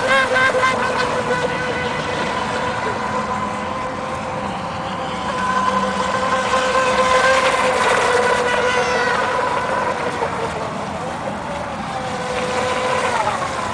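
Small radio-controlled speedboat's motor running at high speed, a steady high-pitched whine with slight wobbles in pitch. Its pitch falls near the end.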